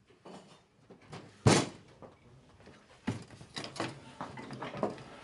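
A sharp wooden knock about a second and a half in, then a run of lighter, irregular knocks and clatter from about three seconds on: wooden parts being tapped and handled.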